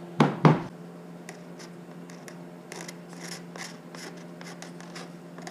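X-Acto hobby knife with a half-inch blade scraped along the edge of a wooden strip in short repeated strokes, shaving off excess cured epoxy. A brief vocal sound comes at the very start, and a faint steady hum runs underneath.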